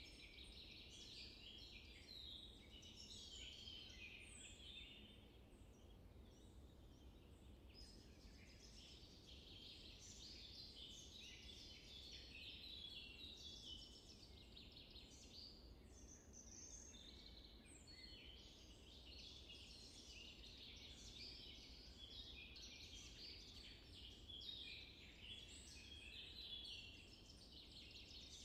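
Faint natural bush ambience: many small birds chirping and twittering together in a continuous chorus, over a low steady rumble.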